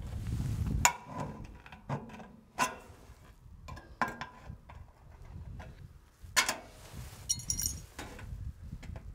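Thin steel trim being handled and worked with hand snips: sharp metallic clanks and clicks, the two loudest about a second in and about six and a half seconds in, with a brief ringing shimmer of the sheet metal soon after the second. Wind rumbles on the microphone for the first second.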